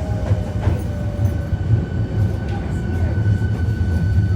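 Hankyu 1300 series electric train running, heard from inside the car: a steady low rumble of wheels and running gear with a few sharp clicks. A thin steady whine from its Toyo Denki IGBT inverter drive sits above the rumble.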